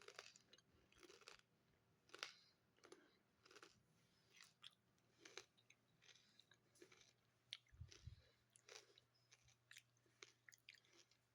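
Faint close-up chewing of crunchy food, with short crisp crunches about once or twice a second.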